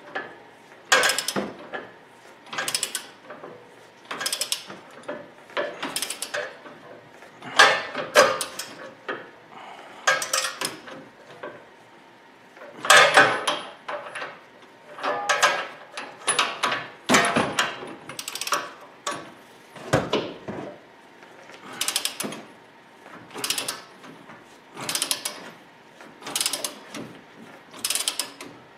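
Socket ratchet clicking in repeated strokes, a burst of clicks about once a second, as the uniball bolt and nut on an aftermarket upper control arm are tightened.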